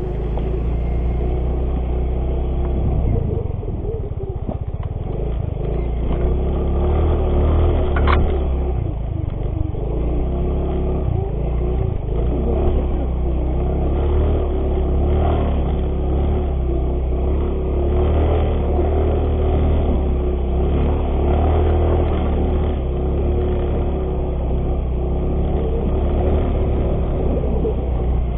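Yamaha X-Ride 125 scooter's single-cylinder engine running steadily on a rough dirt trail, heard from on the bike, with a heavy low rumble underneath. A single sharp click about eight seconds in.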